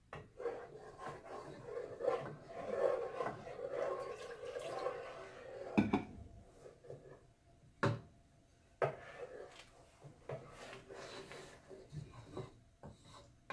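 Wooden spoon stirring and scraping against the bottom of a metal pot of thickening roux-and-milk sauce, in a steady run of rubbing strokes. Louder in the first half, with a few sharp knocks about six, eight and nine seconds in.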